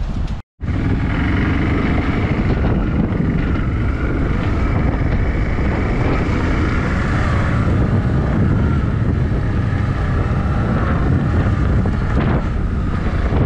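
A motor vehicle's engine running steadily under heavy wind noise on the microphone. The sound cuts out completely for a moment about half a second in, then resumes.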